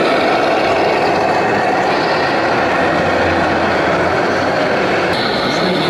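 Sound module of a radio-controlled Scania truck playing a steady diesel-engine running sound as the truck and trailer creep along, over the constant din of a busy hall.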